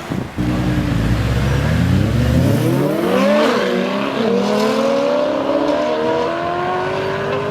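Ferrari Enzo's V12 engine accelerating away, its pitch rising steeply through the first gear. Quick upshifts come about three and a half seconds in and again a second later, after which it pulls steadily in a higher gear with the pitch climbing slowly.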